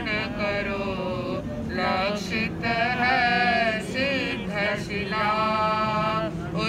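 Jain monks' male voices singing a Hindi devotional geet with no instruments. The melody bends through sliding notes and settles into long held notes near the end.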